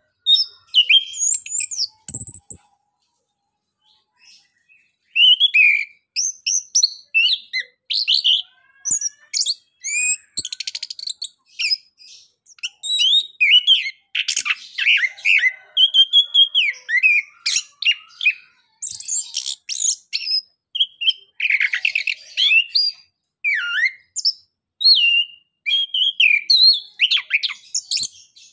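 Chestnut-capped thrush (anis kembang) singing a loud, varied song of short, high whistled phrases, broken every few seconds by quick chattering trills, with a pause of about two seconds near the start.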